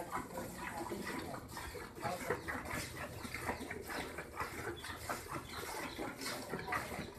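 Milk squirting from a cow's teats into a steel pail as two people hand-milk from both sides at once. It comes as a quick, uneven run of short hissing squirts, several a second.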